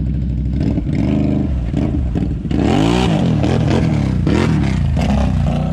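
Off-road vehicle engine running steadily, then revving up and down in several quick surges from about two and a half seconds in.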